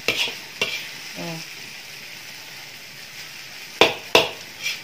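Instant fried noodles sizzling in a metal wok as a metal spatula stirs them, frying them until dry. The spatula scrapes and knocks against the wok, with two sharp knocks near the end.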